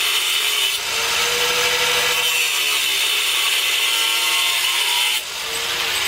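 A 4.5-inch angle grinder with a cut-off wheel cutting quarter-inch mild steel bar: a loud, steady grinding screech. A little after five seconds the wheel comes out of the cut, the noise drops, and the motor winds back up running free.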